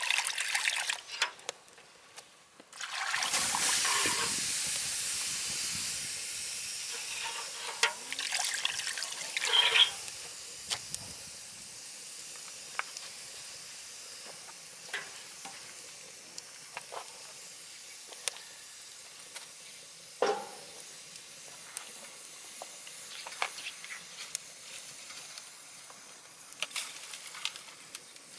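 Scrap lumber burning in a wood stove: a hiss that swells about three seconds in and slowly dies down, with scattered crackles and occasional sharp pops, the loudest near ten and twenty seconds in.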